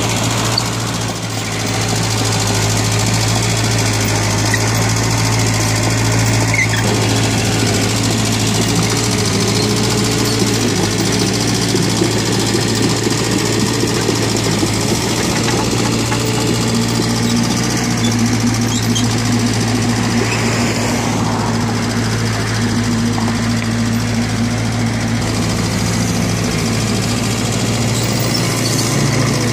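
Hanix H45A mini excavator's diesel engine running steadily as the machine digs and moves wet soil with its bucket, a constant low hum.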